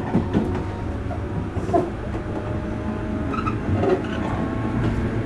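Running sound inside a JR Kyushu 103 series electric multiple unit motor car (MoHa 103-1510) under way: a steady low rumble with a few short, sharp knocks.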